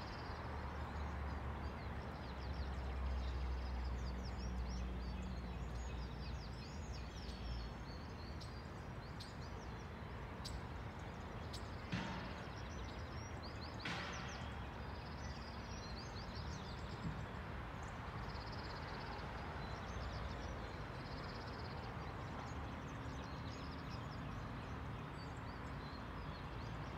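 Outdoor ambience: a steady background hiss and low rumble, with many small birds chirping and calling throughout. The rumble is strongest in the first several seconds, and there are two sharp clicks, about twelve and fourteen seconds in.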